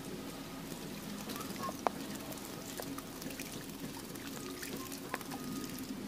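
A small bird bathing in a shallow concrete bird bath, flicking water in quick, scattered little splashes, with two sharper clicks about two seconds and five seconds in.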